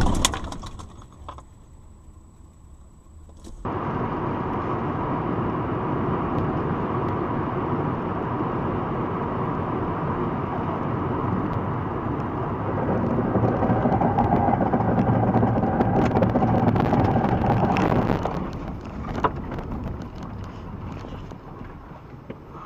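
A car driving, with steady engine and road noise that starts suddenly about four seconds in, grows louder in the middle and fades away near the end.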